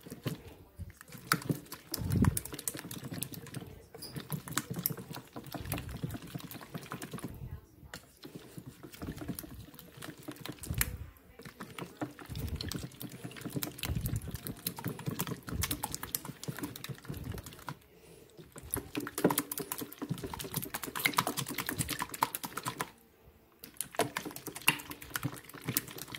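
Hand whisk beating eggs in a stainless steel bowl: fast, continuous clicking of the wires against the metal with wet sloshing, stopping briefly a few times.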